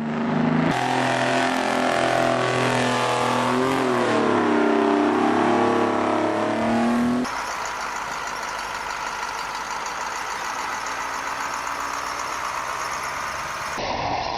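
Heavy vehicle engine revving under load, its pitch rising and falling for several seconds. It then cuts to a quieter, steadier engine running.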